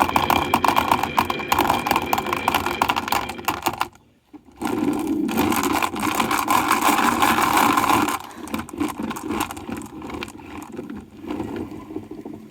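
Marbles rolling and clattering down wooden marble run tracks in a dense rattle of rapid clicks. The sound stops briefly about four seconds in, resumes as a steady rolling rumble, then thins to scattered clicks near the end.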